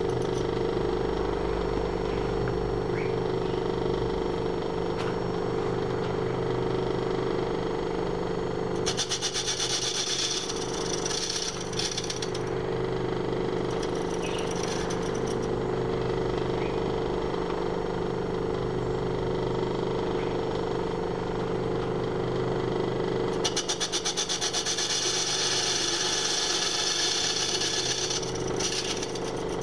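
Small imperial bench lathe running steadily with a light cut on a cast-iron cylinder cover held in a three-jaw chuck. The tool cutting the iron adds a high-pitched scraping twice: about nine seconds in for a few seconds, and again from about twenty-three seconds in for about five seconds.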